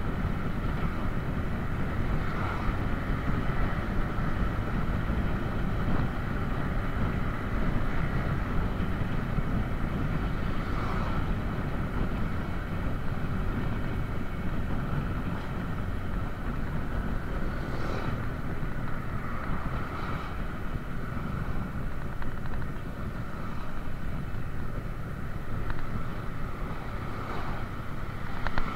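Motorcycle running steadily while riding along a road, its engine noise mixed with steady wind rush on the action-camera microphone.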